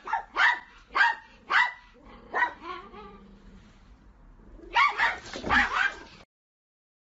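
Dog barking: a run of sharp, high-pitched barks, one about every half second, then a lull of about two seconds, then a few more barks before the sound cuts off suddenly.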